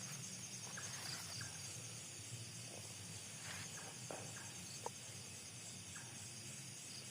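Night insects such as crickets chirring in a steady, high pulsing trill, over a low steady hum, with a few faint scattered clicks.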